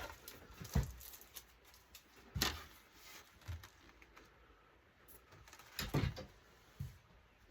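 A few scattered knocks and clatters of the dismantled LCD monitor's parts being handled while it is put back together, about five separate knocks with quiet between.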